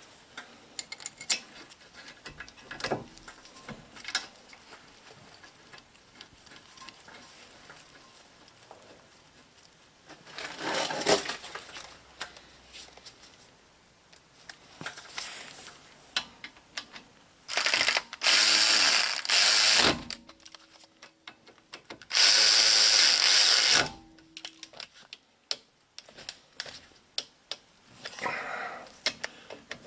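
A handheld power tool runs in two loud bursts of about two seconds each, a little past the middle, driving in bolts on a car's front brake assembly. Scattered clicks and clanks of tools and parts being handled come before and after.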